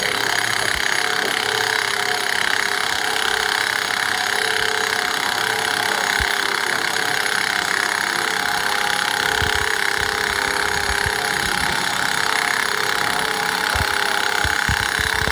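Handheld pneumatic wrench running steadily with an air hiss and whine as it screws a double-nutted keel bolt into a sailboat keel's threaded bolt hole.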